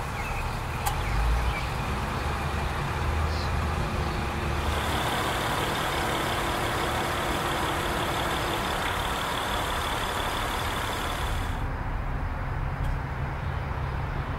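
Steady car noise, a continuous drone with a low rumble, whose character changes abruptly twice, about five and twelve seconds in.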